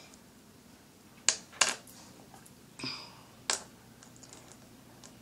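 A thin metal chain clicking and clinking as it is shaken out and handled over a table: four short sharp clicks, one with a brief metallic jingle.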